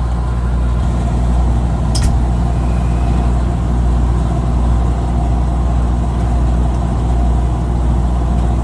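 Steady low drone of a tugboat's onboard diesel machinery running, an even hum with no change in pace. A single short click comes about two seconds in.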